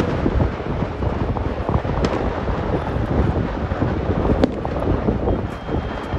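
A distant barrage of fireworks going off in quick succession, the bangs merging into a continuous rumble, with two sharper cracks standing out about two seconds and four and a half seconds in. Wind on the microphone.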